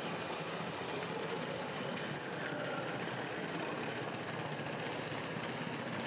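Radio-controlled scale model trucks running: a steady small-motor whir mixed with an idling engine-like sound.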